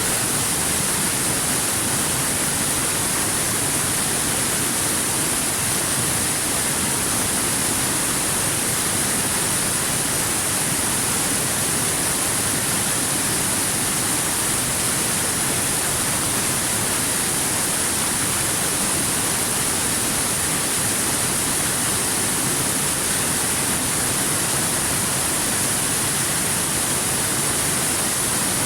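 River water rushing steadily over rocks, an even, unbroken hiss with a bright high edge.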